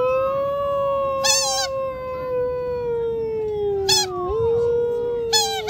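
A man's long wordless hunting call through cupped hands, imitating a wild animal: one held, howl-like cry that swoops up, then slowly sinks in pitch, jumps up again about four seconds in and sinks once more. Short, high warbling squeaks sound three times over it.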